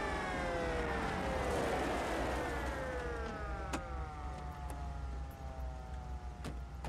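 Several vehicle sirens winding down together, their pitches sliding slowly lower and fading. A few sharp clicks sound in the second half.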